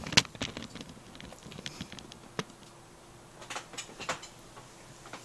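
Handling noise from a camera being moved and set in place: scattered knocks, clicks and light rustles. The loudest knock comes just after the start, and a few more clicks follow in the middle.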